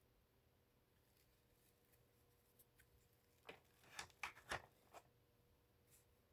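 Near silence: room tone, with a short run of five or six faint clicks and rustles about halfway through.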